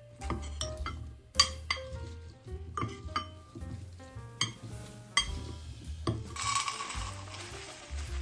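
Kitchen utensils clinking against bowls and dishes, with about five sharp clinks, over soft background music; a hiss starts a little after six seconds in and fades.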